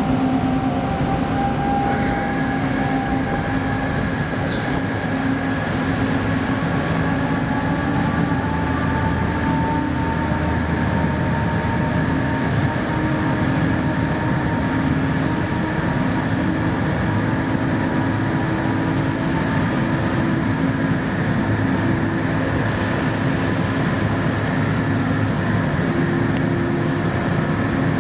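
Car ferry's engines and machinery droning steadily, a continuous rumble with several held tones over it.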